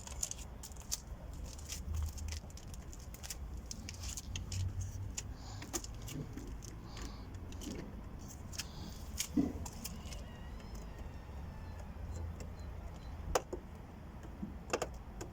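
Scattered small clicks, taps and rattles of hands and a tool working at the plastic interior door-handle surround of a car door trim panel, over a low steady hum.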